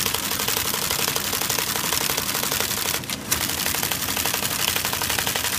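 IBM 1053 console printer, a Selectric-type typewriter mechanism, typing a fast, even run of character strikes. It pauses briefly about three seconds in, then a sharp clack and the typing resumes. The owner says its spacing is still a bit erratic from solidified grease and dirt in the mechanism.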